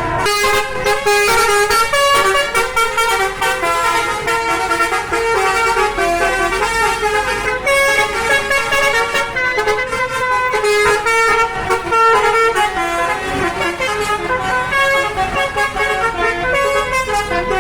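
Bus telolet horns, the multi-tone musical air horns of Indonesian buses, playing stepping melodic tunes over one another without a break.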